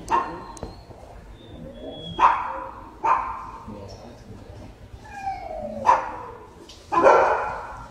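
Dogs barking in a shelter kennel block: about five sharp barks at irregular gaps of one to three seconds, each ringing on in echo off the hard walls.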